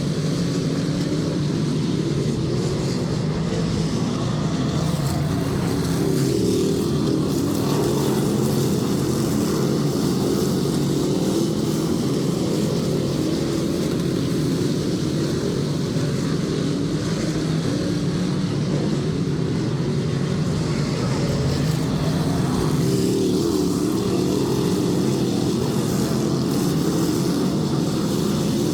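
Dirt-track race cars running laps on an oval, their engines making a loud, continuous drone that swells and fades slightly as the field goes by.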